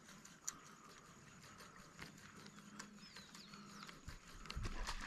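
Faint, irregular clicking of a fishing reel as line is wound in. A low rumble on the microphone comes in about four seconds in.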